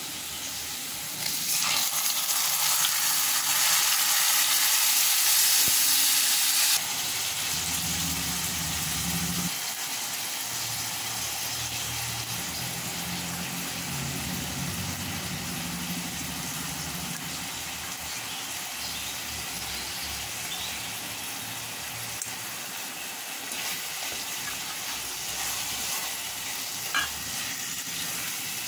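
Onions sizzling in hot oil in a metal pan. The sizzle flares up loudly for about five seconds when chopped tomatoes and green chillies go in, then settles to a steady sizzle as a wooden spoon stirs the mix.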